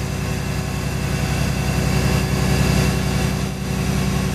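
Steady drone of industrial machinery: a constant low hum with a held tone above it, dipping slightly about three and a half seconds in.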